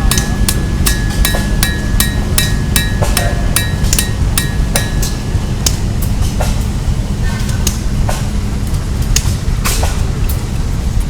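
Blacksmith's hammer striking metal on an anvil, a regular run of ringing blows about three a second that thins to scattered single strikes after about five seconds, over a steady low rumble.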